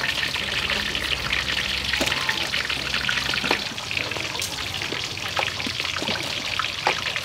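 Water splashing and trickling in a metal bowl as leafy greens are rinsed by hand, a steady run of small splashes and drips.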